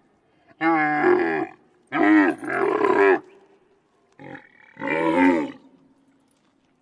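A camel calling: three loud, drawn-out calls of about a second each, with a short, fainter call between the second and the third.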